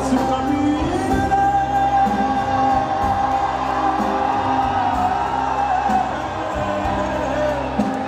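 Live rock band playing drums, bass guitar and electric guitar, with a voice holding one long sung note from about a second in for some five seconds. The crowd whoops along.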